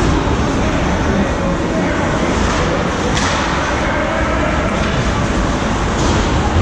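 Ice hockey game crowd: many spectators' voices talking at once over a steady rumble, with a few sharp knocks.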